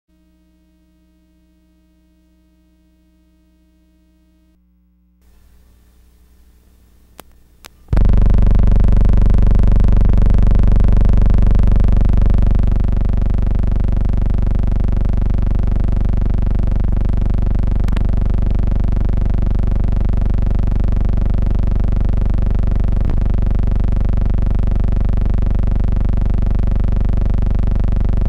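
Background music: a sustained synthesizer drone. It starts loud about eight seconds in, after a few seconds of faint steady tones, and holds without change, with a few faint clicks.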